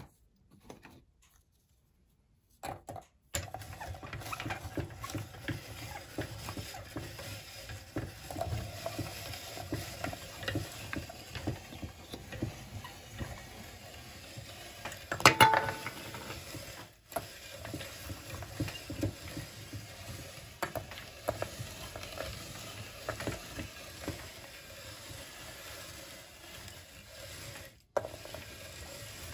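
Hand-cranked cast-iron meat grinder crushing hard striped cookies: a continuous crunching, grinding and clicking as the crank turns the auger, beginning after about three seconds of near silence. One louder sharp knock about halfway through.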